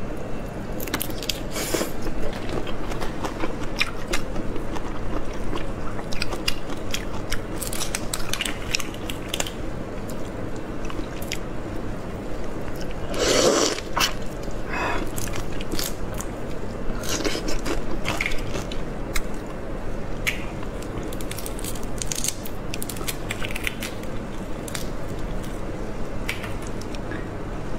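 Close-miked chewing and biting of cooked shrimp, with irregular crunching of shell throughout; one longer, louder crunch about halfway through.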